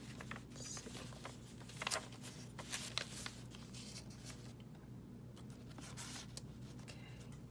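Paper rustling and scraping as hands handle the book's pages and smooth a torn paper piece onto a page. The sounds come in short scattered bursts, with the strongest about two and three seconds in and again near the end.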